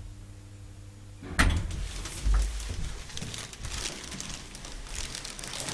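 Elevator door unlatching with a sharp click about a second and a half in, then rattling and scraping as the door of an old KONE hydraulic elevator is worked open.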